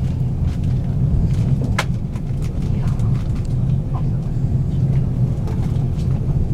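Steady low rumble of a 485-series electric train heard from inside the passenger car, with a sharp click a couple of seconds in and a few lighter ticks.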